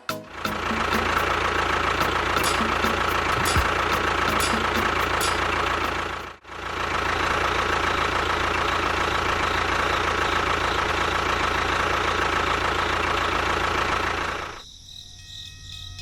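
Small electric motor and gearbox of a homemade mini construction machine running steadily, with a constant high tone over the mechanical noise. It breaks off for a moment about six seconds in and stops near the end.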